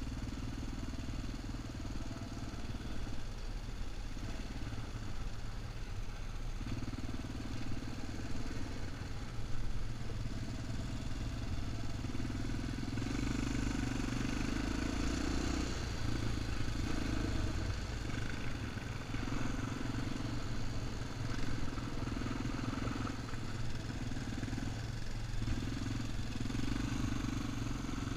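An ATV (quad bike) engine running at trail speed, its note swelling and easing every few seconds with the throttle.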